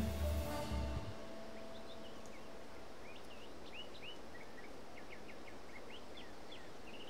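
Background music ends about a second in. It leaves a steady outdoor hiss with many short bird chirps, quick high notes bending up and down, several a second.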